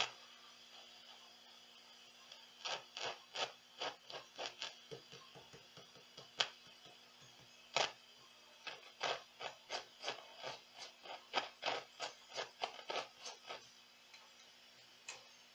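Meteoro Atomic Drive ADR-20 guitar combo amplifier crackling and scratching through its speaker as its bass and middle knobs are turned, over a steady low hum. The crackles come in an irregular run that starts a few seconds in and stops near the end: scratchy potentiometers, which the repairer puts down to dirt in the pots.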